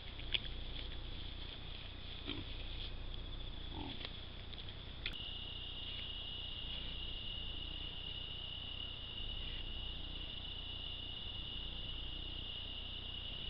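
Night insects calling in a steady, continuous high trill, which steps a little lower in pitch after a sharp click about five seconds in. Faint snuffles from a feral pig close by come twice in the first four seconds.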